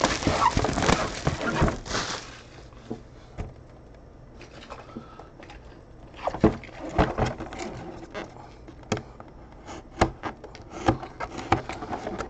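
Plastic shrink wrap crinkling as it is pulled off a cardboard box, dense for about two seconds. After a quieter stretch, scattered sharp crackles and taps follow as the wrap and box are handled.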